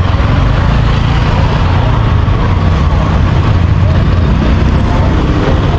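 Busy street-market ambience: a steady, loud low rumble with voices chattering in the background.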